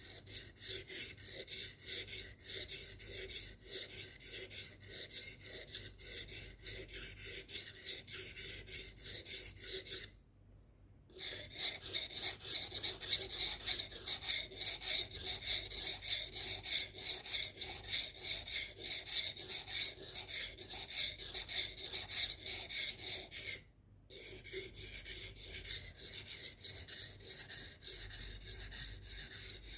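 Kitchen knife blade being drawn quickly and repeatedly across a sharpener, a steady rhythmic scraping. It stops briefly twice, about a third of the way in and again about two-thirds through.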